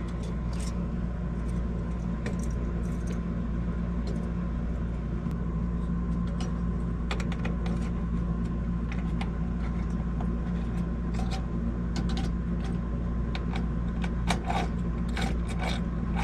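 Small metal clicks and ticks of a screwdriver and screws as a CPU cooler is screwed down onto a motherboard, scattered and more frequent near the end, over a steady low hum.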